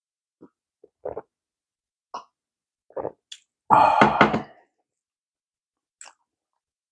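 A few gulps from a glass of cola, then a loud, rough burp lasting about a second near the middle. A small click from chopsticks follows near the end.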